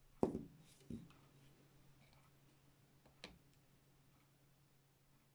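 Small porcelain palette dish set down on a table: a knock, then a lighter knock about a second in, and a single sharp click about three seconds in as a paintbrush touches the dish.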